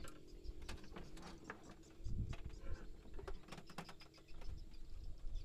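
Light clicks and knocks of fishing tackle being handled in a small boat, with a dull thump about two seconds in and another near the end, over a steady low hum.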